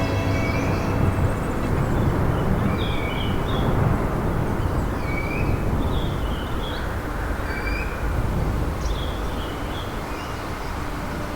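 Waterfall: the steady, deep rush of falling water, with scattered short high chirps above it.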